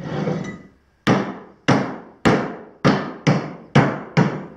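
Steady hammer blows on a jointer cutterhead shaft, about two a second, each ringing briefly, driving a bearing off the shaft by hand in place of a press.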